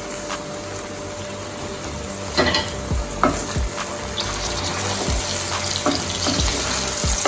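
Onion, garlic, scallion and thyme sizzling in cooking oil in a pan, with scattered clicks and knocks of a spoon against the pan. The sizzle grows louder toward the end.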